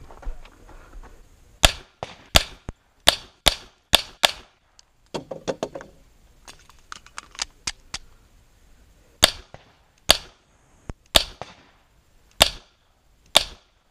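Semi-automatic pistol fired in a timed string: six quick shots, then a pause of several seconds with softer pops and clicks, then five slower, evenly spaced shots.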